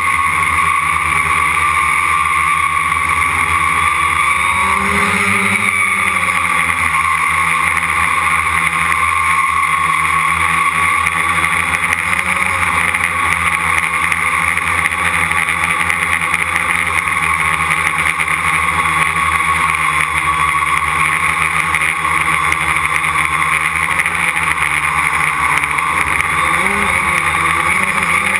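Quadcopter's electric motors and propellers whining steadily, heard close up from a camera mounted on the frame. The pitch swells briefly about five seconds in and again near the end as the throttle changes.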